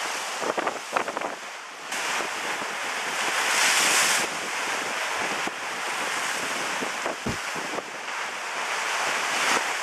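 Storm-driven lake waves breaking and splashing against a stone quay wall, with gale-force wind buffeting the microphone. The rush swells and falls, loudest about four seconds in.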